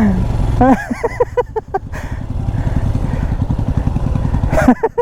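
Motorcycle engine running steadily with a voice calling out about a second in; the engine sound cuts off abruptly near the end.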